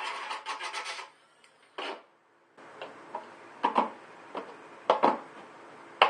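Small corded rotary tool grinding out the edge of a hole in a plastic cooler lid, cutting off about a second in. After a pause come several knocks and rubs of a plastic PVC elbow being pushed and worked into the widened hole.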